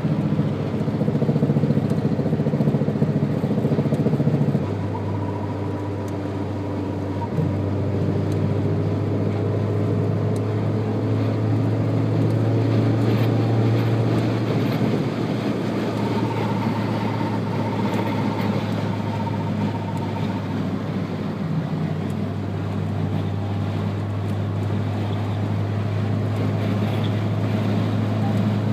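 Toyota Corolla FX16 GT-S running steadily, with a low drivetrain hum and faint whining tones. A single sharp knock comes about seven seconds in. This is the kind of front-end clunk the owner suspects may come from the CV axles.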